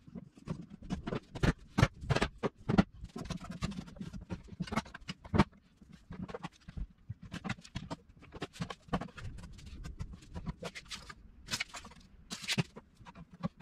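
Irregular clicks, knocks and rattles of a wooden drawer box and steel bar clamps being handled and tightened during a glue-up, with a couple of longer rasping sounds near the end.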